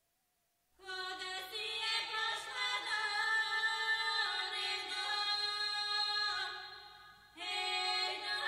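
Background music: a sung vocal line with long held notes, starting just under a second in. It fades out briefly near the end and comes back.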